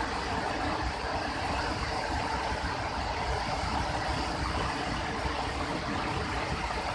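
Steady rush of fast-flowing floodwater in a swollen river, high enough to cover the rocks in its bed.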